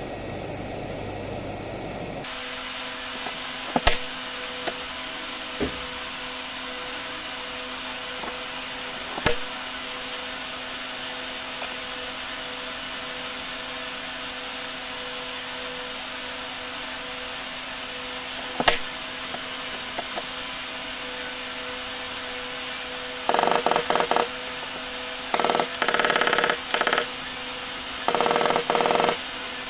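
Workshop machine running with a steady hum, a few sharp knocks, then three loud bursts of tool noise, each a second or so long, near the end.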